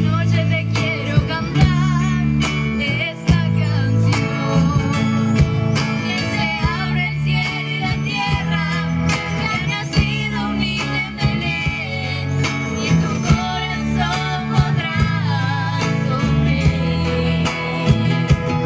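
Live music: a song sung over guitar and a strong bass line, with sharp percussive beats.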